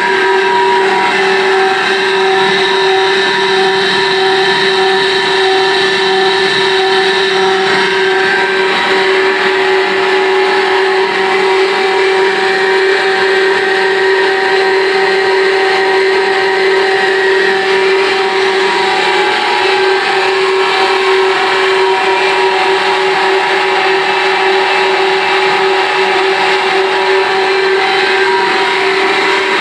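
Cross-flow water turbine and its belt-coupled generator running steadily at working speed, the generator putting out about 220 volts: a constant whine over a rushing hiss, unchanging throughout.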